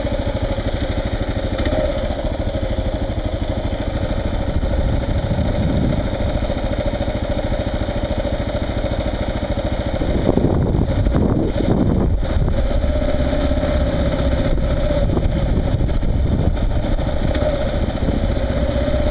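Kawasaki KLR dual-sport motorcycle's single-cylinder engine running steadily under way, with a brief change in engine note about ten seconds in.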